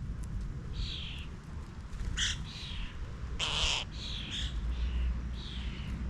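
Garden birds calling: a run of short, slightly falling calls, with one louder harsh call about three and a half seconds in.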